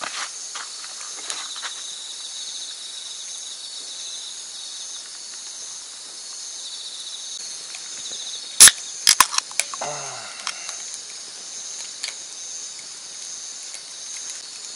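Insects chirping steadily in a dense, shimmering chorus. About two-thirds of the way through comes one very loud sharp click, followed within a second by a few smaller clicks.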